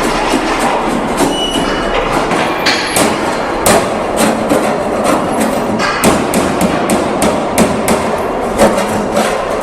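Hammer blows in a locomotive repair shop: sharp strikes at an irregular pace, a few a second, over a steady background of workshop noise.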